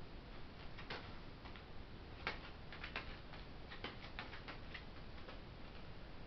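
A juvenile herring gull's feet stepping on plastic sheeting, giving faint, irregular light clicks and crinkles, most of them bunched between about two and five seconds in.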